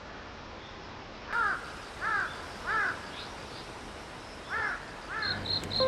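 Crow cawing: five harsh calls, three in quick succession and then two more after a short pause.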